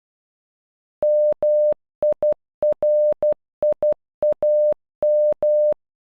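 Computer-generated Morse code beeps spelling MIRIAM (-- .. .-. .. .- --): a single steady tone keyed on and off in short dots and longer dashes, starting about a second in, with short gaps between the letters.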